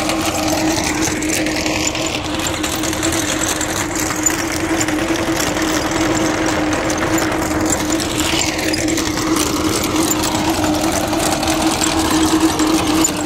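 Sonalika 750 tractor engine running steadily under load while the chain trencher behind it digs, with a fast, constant mechanical clatter from the digging chain over the engine hum.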